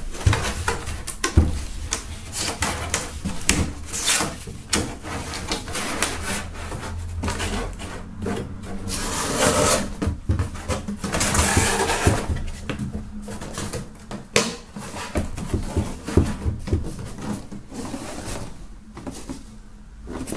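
Large corrugated cardboard box being unfolded and folded into a stool by hand: rustling, creasing and repeated knocks of cardboard flaps, with a couple of longer rushes of rustling about halfway through.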